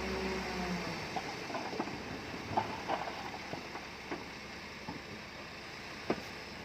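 Bulldozer working: its diesel engine hum fades within the first second, leaving a steady rumble with scattered metallic knocks and clanks.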